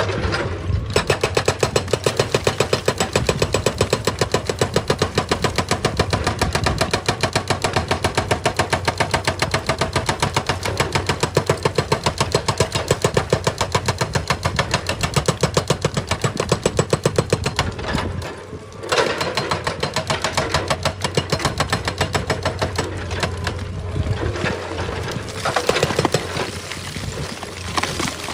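Excavator-mounted hydraulic rock breaker hammering stone in rapid, even blows, several a second, over the machine's running engine; it stops briefly about two-thirds of the way through, then starts again.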